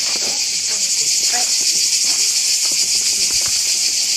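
Loud, steady chorus of cicadas, a dense high-pitched buzz that never lets up.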